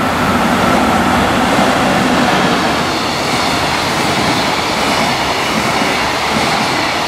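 Long freight train of container wagons passing at speed, its wheels clattering steadily over the rail joints.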